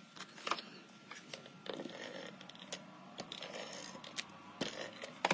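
Cardstock and paper being handled and pressed down on a craft mat: soft rustling and sliding with a scatter of light taps and clicks, the sharpest near the end.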